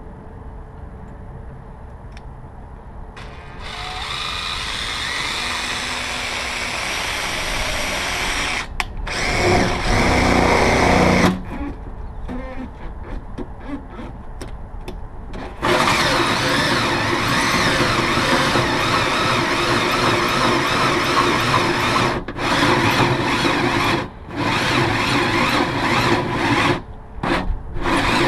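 Electric drill running and boring into the sheet-metal fender of a Toyota FJ Cruiser, starting about three seconds in. For a couple of seconds it gets louder and lower as the bit bites, then comes in several short trigger bursts, then runs steadily for a long stretch with a few brief stops.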